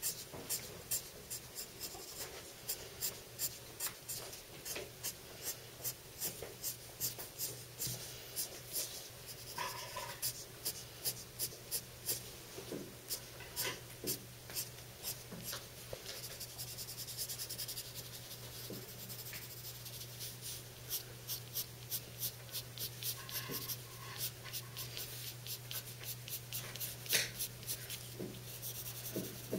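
Pencil scratching on paper in short, quick flicking strokes, about two or three a second, as fur marks are drawn; the strokes run closer together for a while in the middle.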